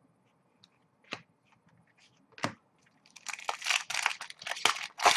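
A trading-card pack's foil wrapper crinkling and crackling as it is torn open by hand, starting about three seconds in, after two single light clicks.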